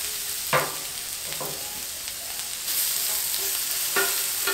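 Potatoes sizzling in butter on a hot Blackstone flat-top griddle, a steady hiss, with three short scrapes of a metal spatula on the steel plate about half a second, a second and a half and four seconds in.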